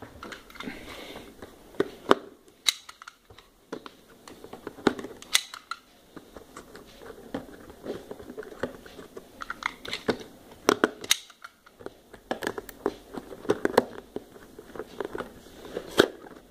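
Fingers handling a small cardboard retail box and picking at its end flap to open it: irregular clicks, taps and light scratches of cardboard.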